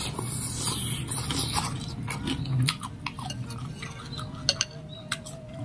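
Eating bakso noodle soup up close: noodles slurped in at the start, then chewing, with a metal spoon and fork clinking now and then against a glass bowl.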